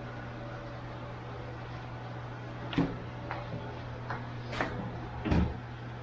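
A few scattered knocks and clicks from objects being handled, the loudest two about three seconds in and near the end, over a steady low hum.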